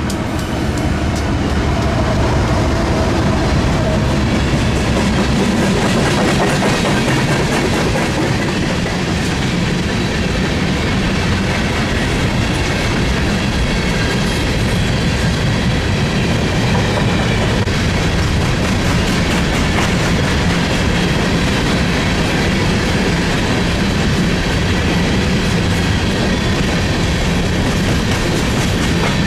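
Freight train passing close by, its cars rolling steadily on the rails. The sound builds over the first couple of seconds and then holds loud and even.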